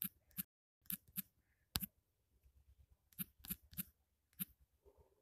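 Short, sharp clicks of keys being tapped on a smartphone's on-screen number keypad as a six-digit PIN is entered one digit at a time. There are about ten clicks, irregularly spaced, with a quick run of four about three seconds in.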